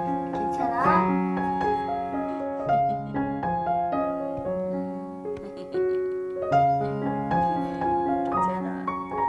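Background piano music: a gentle melody over held chords, with a quick upward run of notes about a second in.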